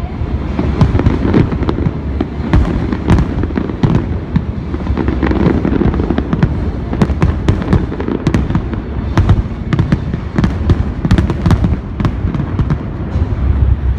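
Fireworks display: a dense, continuous barrage of deep booms with many sharp cracks on top.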